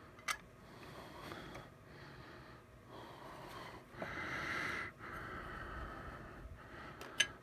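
Plastic card display stands being handled and set up: soft rustling with a sharp click about a third of a second in and two more near the end, and a breath-like rush of about a second around four seconds in.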